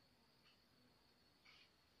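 Near silence: room tone, with two very faint short ticks about a second apart.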